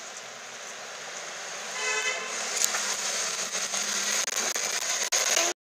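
Lamborghini Aventador's V12 engine as the car drives past in street traffic, getting louder about two seconds in as it comes close, with a brief steady tonal note at that moment. The sound cuts off suddenly near the end.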